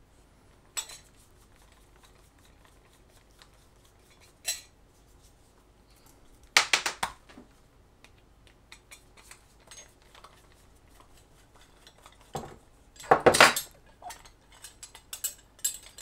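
Screwdriver taking out the small screws that hold a metal mounting bracket on a hard drive: scattered light ticks of the bit in the screw heads, with clusters of sharp metallic clinks and rattles about halfway through and again near the end.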